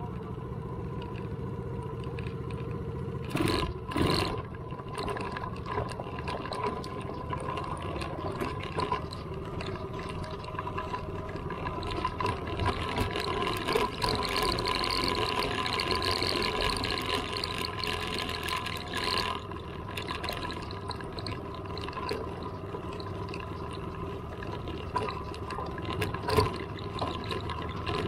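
Small off-road vehicle engine running steadily while riding along a gravel and dirt trail, with tyre noise over the gravel. A couple of short knocks come about four seconds in, and another near the end.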